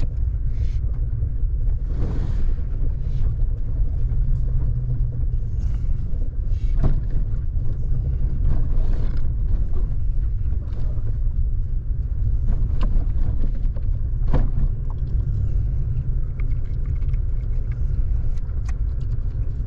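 Vehicle driving along a rough unpaved forest road: a steady low engine and road rumble, with occasional sharp knocks and rattles from bumps.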